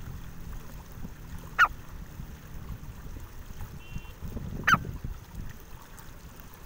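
Grey francolin giving two short, sharp calls about three seconds apart, each a quick wavering note, over a low background rumble.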